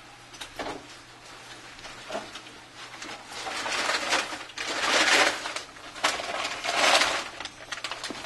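Handling noise from working on a phone at a bench: scattered light clicks and taps, with two louder noisy sweeps, each about a second long, a little past the middle.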